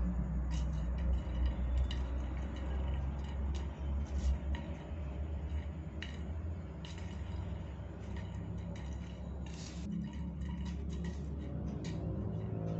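Light, scattered clicks and taps of a plastic drinking straw and a kitten's paws on a ceramic tile floor as the kitten bats and chases the straw, over a steady low hum.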